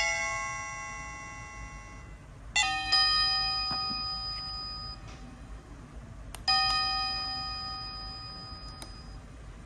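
Wireless doorbell receiver playing electronic chime tones through its small speaker. A chime fades out at the start, a two-note chime sounds about two and a half seconds in, and another chime sounds about six and a half seconds in, each dying away over a few seconds.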